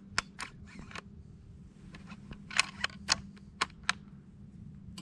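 A scatter of small, sharp clicks and taps close to the microphone, about ten in all at uneven spacing, loudest a few seconds in: handling noise, over a faint steady hum.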